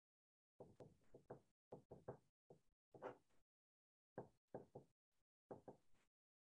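Faint knocks and scratches of a pen writing on paper on a desk, in a string of short bursts that start about half a second in and stop shortly before the end.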